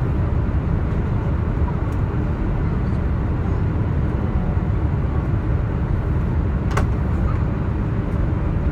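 Steady cabin noise of a Boeing 787-8 airliner in flight on its approach: a constant low rumble of airflow and engines. A single sharp click about seven seconds in.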